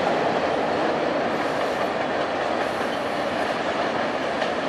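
Freight cars of a Norfolk Southern mixed freight train, tank cars among them, rolling over a steel girder railroad bridge: a steady rumble of steel wheels on rail.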